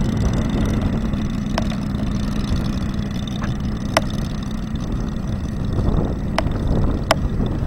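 Moki 250cc radial engine in a large-scale model Focke-Wulf Fw 190, running steadily at low taxiing throttle with a low, even beat. Four sharp clicks are heard over it, the last two close together near the end.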